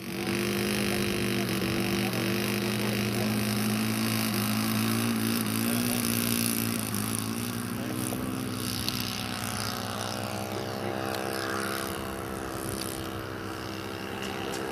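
Model aircraft's ASP 400 engine, converted from glow fuel to petrol with a Walbro carburettor, running steadily as the plane sits and rolls on the ground. Its note shifts several times, then rises and fades a little from about eight seconds in as the plane takes off and climbs away.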